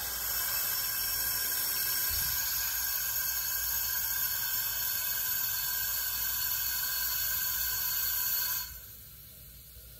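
Compressed air hissing steadily through an air hose and quick-disconnect into a homemade boost leak tester on a turbo intake, pressurizing the intake system toward 10 psi. The hiss cuts off suddenly near the end.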